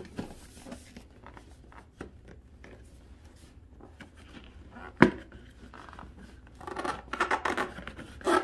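Hands handling and turning a cardboard product box: scattered rubbing and light taps on the cardboard, a sharp knock about five seconds in, then a quick run of scraping strokes near the end.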